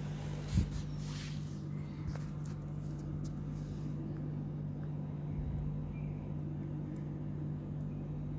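Steady low mechanical hum with a few fixed pitches and no change. A single thump comes just over half a second in, and a few faint clicks follow.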